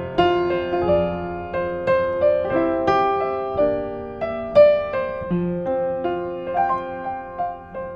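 A 1960s upright piano played solo: a flowing passage of single notes and chords, each struck note ringing and fading before the next, several notes a second.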